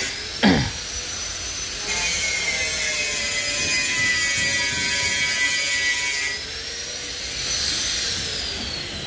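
Angle grinder in a bus body-repair shop: a high whine, cutting into metal with a rougher grinding noise for about four seconds, then free-running again and winding down in pitch after the trigger is released. Just after the start there is a short, loud downward-sweeping noise, the loudest moment.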